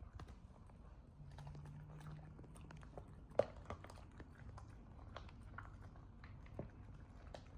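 A puppy eating quickly from a bowl: rapid, irregular chewing and smacking clicks, with one louder knock about three and a half seconds in.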